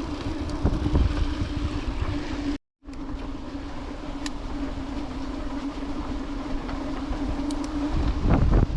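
Mountain bike riding noise: a steady hum from the moving bike under irregular wind rumble on the camera microphone. The sound drops out completely for a moment about two and a half seconds in, then carries on, with the rumble louder near the end.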